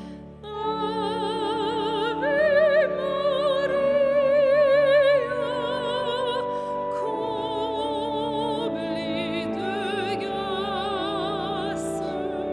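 A woman singing a hymn refrain in long held notes with wide vibrato, leading a congregation, in a large reverberant church, over steady held lower notes.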